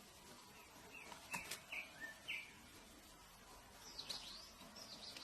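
Birds chirping over a faint steady background: a few short chirps about a second in, then a run of higher, quick chirps near the end. There are a couple of sharp clicks among the first chirps.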